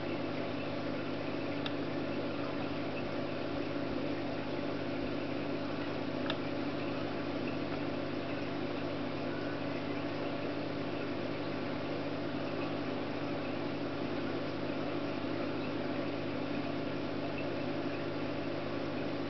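Steady low mechanical hum, with a couple of faint clicks about two and six seconds in.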